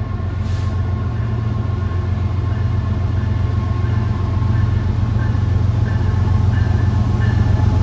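Diesel locomotive engine of a CSX freight train running with a steady low drone, slowly growing louder.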